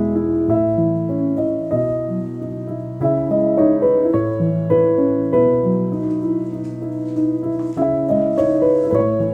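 Background music: a gentle piano melody played over chords.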